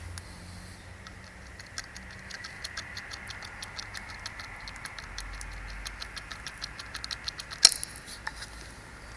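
2.0 CRDi D4EA diesel engine running with a fast, irregular ticking and one sharp click near the end. The engine has a failed turbo and blows heavily from the oil filler cap.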